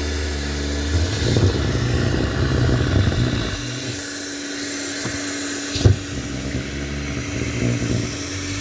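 Small handheld car vacuum cleaner running steadily with a constant motor whine, with rumbling handling bumps and a sharp knock about six seconds in.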